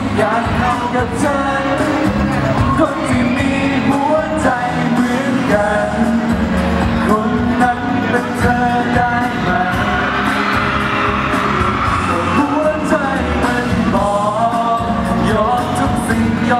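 Thai pop song performed live through a stage PA: a male singer's voice over the backing music.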